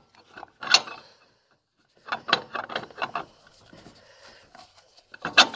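Long steel axle bolt being slid back through a Bad Boy ZT Elite mower's front caster fork and wheel hub, through the newly fitted bearing. Metal scraping and clinking: a few sharp clicks, a quick run of them in the middle, light rubbing between.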